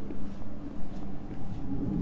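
Low steady rumble of a motor vehicle, with a hum that swells near the end.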